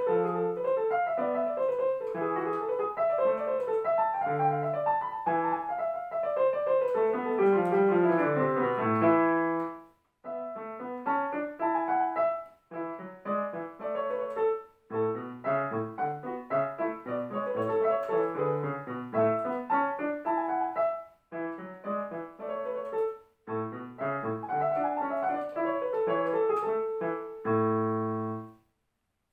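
Digital piano played solo: a classical piece in quick running passages, then phrases with short breaks between them, ending on a held chord near the end that stops abruptly.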